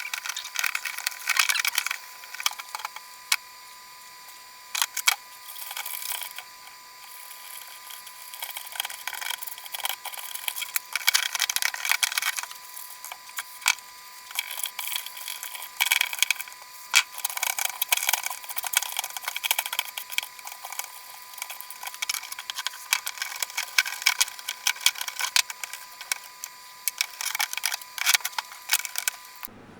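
Irregular scrubbing and scraping with many sharp clicks and taps, typical of parts being cleaned by hand, over a faint steady high whine.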